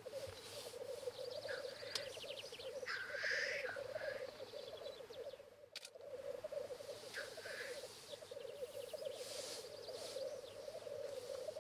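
Black grouse cocks on a lek, their continuous low bubbling rookooing song running without a break. Short hissing calls burst over it again and again.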